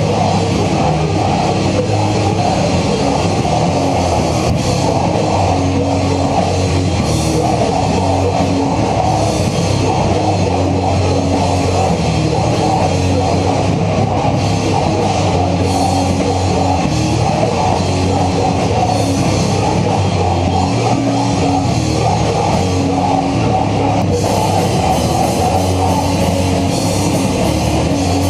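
Hardcore/thrash metal band playing: heavily distorted guitars over a drum kit, loud and dense. The cymbals come up brighter about four seconds before the end.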